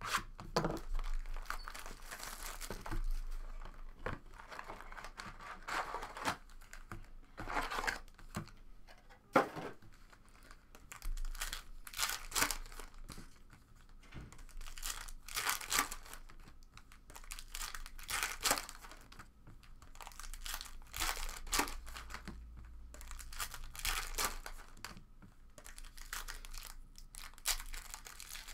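Plastic wrapping being crinkled and torn in repeated short crackling bursts: a sealed box of 2017 Panini Contenders Football trading cards and its packs being unwrapped.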